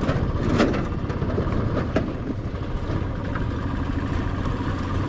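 Motorcycle engine running steadily at low speed on a rough track, with a couple of brief knocks about half a second and two seconds in.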